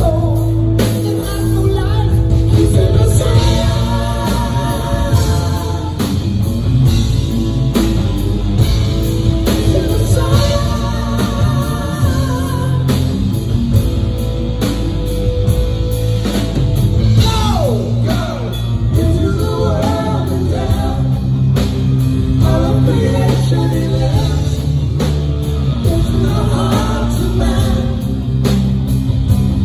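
Heavy metal band playing live: a man singing lead over distorted electric guitars, bass guitar and drum kit, recorded from the audience. About 17 seconds in, a sharp falling pitch sweep cuts through the mix.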